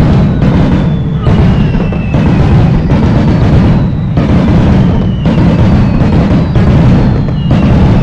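Fireworks going off in a dense barrage of booms, with several whistles that fall in pitch.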